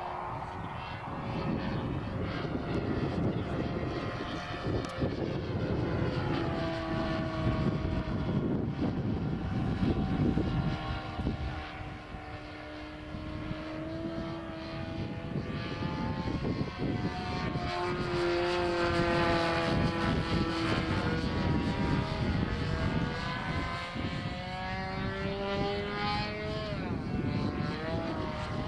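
Hangar 9 P-51 Mustang radio-controlled model plane flying overhead, its engine and propeller note rising and falling in pitch several times as it passes back and forth. Wind rumbles on the microphone underneath.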